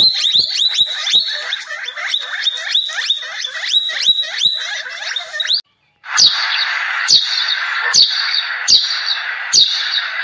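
A rapid run of high chirps, several a second, breaks off about halfway. It is followed by sparrows chirping: sharp downward chirps roughly every second over a busy background chatter.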